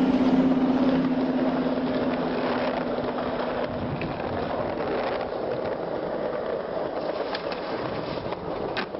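Skateboard wheels rolling on concrete, a steady rumble, with a few sharp clacks of the board in the second half.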